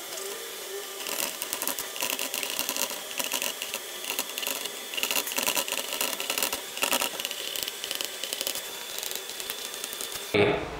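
Chalk writing on a chalkboard: a continuous run of short scratches and taps as letters are written out.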